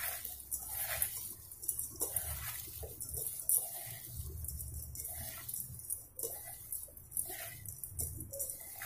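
A bare hand mixing chopped onions and crushed flattened rice (poha) with spices in a stainless steel bowl: irregular soft rustles and light scrapes of the ingredients against the bowl.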